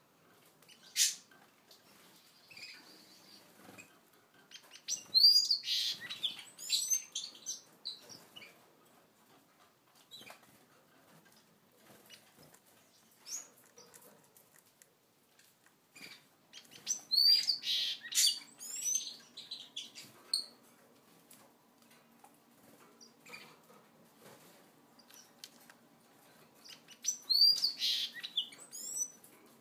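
Gouldian finches chirping in three bursts of quick, high calls, some rising and some falling. A sharp click comes about a second in, with a few fainter clicks between the bursts.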